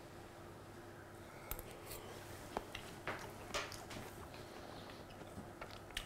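A man chewing a hot mouthful of cauliflower gratin: faint wet clicks and smacks of the mouth, with short puffs of breath, starting about a second and a half in.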